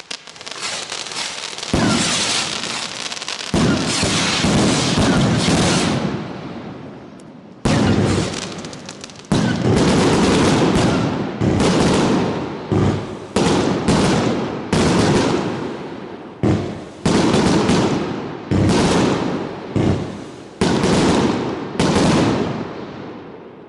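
Consumer fireworks going off in quick succession: dense crackling bangs, a short lull about six seconds in, then a run of about a dozen loud shots roughly one a second, each followed by a fading crackle, as a firework cake fires its shots.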